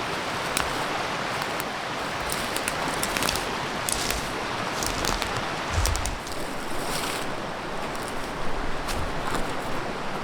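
River water running, a steady rush, with scattered light clicks and a soft low thump about six seconds in.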